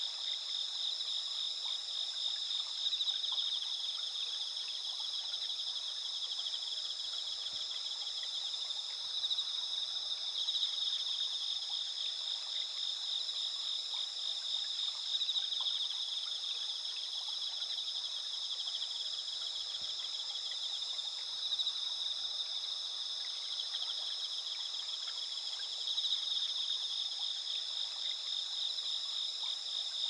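Dense chorus of autumn insects singing at night: several overlapping high, steady trills, the lowest one pulsing rapidly and swelling and easing every few seconds.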